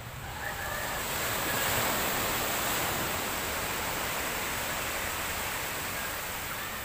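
Small sea waves breaking on the beach: a steady rush of surf that swells about a second in and then slowly eases.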